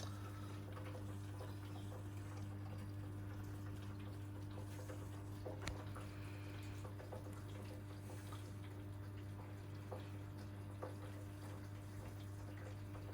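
Hoover Electra 535 top-loading washing machine filling with hot water: water running into the tub over a steady low hum, with a few faint drips and ticks.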